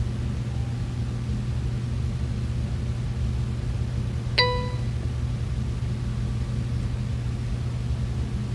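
Kronos time clock giving one short beep about halfway through as a fingerprint scan is captured. A steady low hum of room noise runs underneath.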